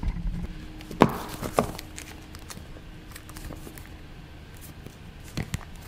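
Sealed iPhone X box being picked up and handled on a stone countertop: two soft knocks about a second in, then faint handling noise.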